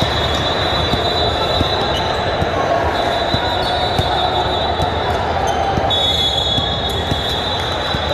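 Basketball game sounds in a large gym: a basketball dribbling and thudding on the hardwood court among a steady din of player and spectator voices. A thin, steady high-pitched tone sounds in long stretches, breaking off for a moment about three seconds in and again near the end.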